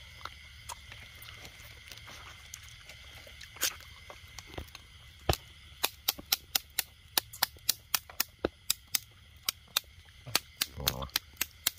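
A fast, even run of loud, sharp clicks, about four a second, starting about six seconds in, after a few scattered clicks. A faint steady high tone runs underneath.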